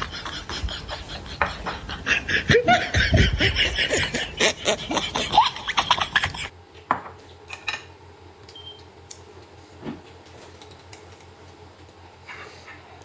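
Noisy slurping and chewing of noodles, dense with wet smacks and clicks. About six and a half seconds in it drops abruptly to quiet, with a few light clicks of chopsticks against the bowl and pot.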